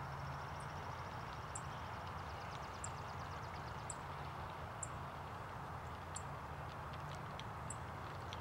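Outdoor pond-side ambience: a small bird repeats a short, high chirp about once a second over a steady low rumble and hiss, with a rapid high trill in the first few seconds.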